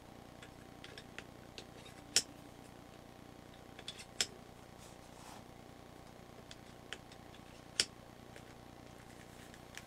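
Brass-cased cartridges being slid into the chambers of a Marushin Taurus Raging Bull gas revolver's swung-out cylinder: a few sharp metallic clicks and taps, the loudest near the end.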